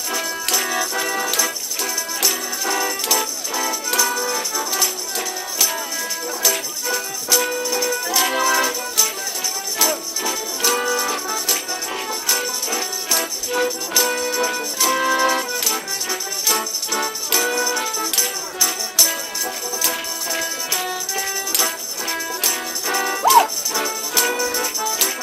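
Live folk dance tune for molly dancing, held melody notes over a steady beat with jingling, rattling percussion.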